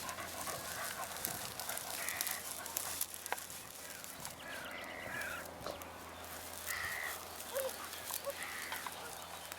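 Crows cawing: several short calls a second or two apart.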